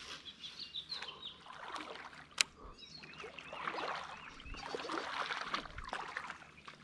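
Shallow river water splashing and trickling, with birds chirping. A single sharp click sounds about two and a half seconds in.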